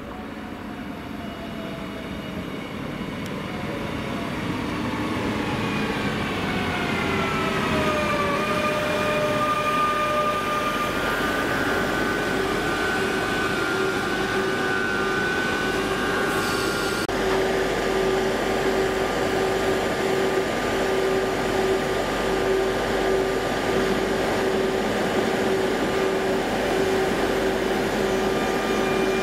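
CP series 2240 electric multiple unit arriving and braking to a stop at a platform. Its whine falls in pitch and grows louder for the first eight seconds or so. The unit then stands with a steady electrical hum and a tone that pulses on and off about once a second.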